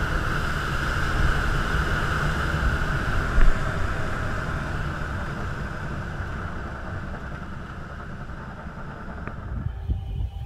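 Airflow rushing over an ASK-21 glider's canopy in a fast, low pass, with a steady hissing whistle. It slowly fades as the glider pulls up and slows, with a brief knock about three seconds in. Near the end it gives way to gusty wind on an outdoor microphone.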